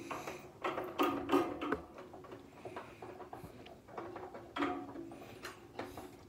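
Screwdriver driving a fixing screw into the gas valve of a gas water heater, with clicks, knocks and small squeaks of the tool and hands working on its metal and plastic parts. The sounds come in two clusters, the second about four and a half seconds in.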